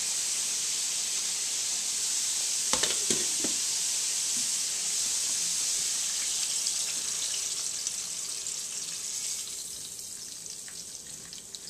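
Country-style pork ribs frying in oil in a skillet: a steady sizzling hiss, with a couple of brief knocks about three seconds in. The sizzle dies down over the last few seconds.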